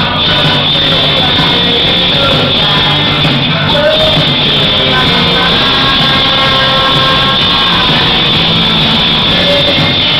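Live rock band playing loud and without a break: electric guitars, bass guitar and drums, with a man singing into the microphone.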